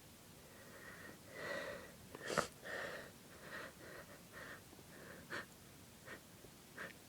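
A person's hitching, wheezy breaths and sniffs, irregular and uneven, with a sharp catch of breath about two and a half seconds in as the loudest sound. This is the build-up to a sneeze, the nose tickled by sniffed pepper.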